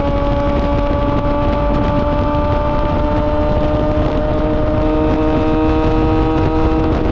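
Yamaha R6 inline-four engine through an SC-Project titanium exhaust, running under way at steady revs with its pitch creeping slowly upward, over a steady rushing noise.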